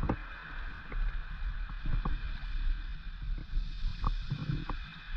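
Seawater sloshing and lapping against a camera held half-submerged at the surface, with a low rumble and scattered small splashes and clicks.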